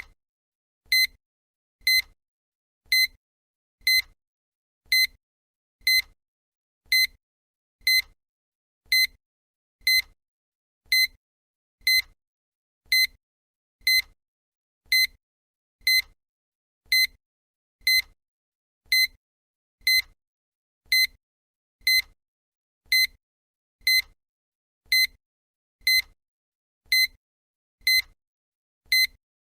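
Countdown timer's electronic tick sound effect: a short, high, clipped beep once every second, evenly spaced, with silence between.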